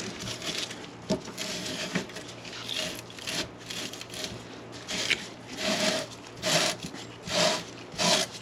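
Abrasive cleaning tool scrubbing a 1/2-inch copper pipe fitting clean before soldering, a rasping scrape in repeated strokes. The strokes become distinct in the second half, about one a second.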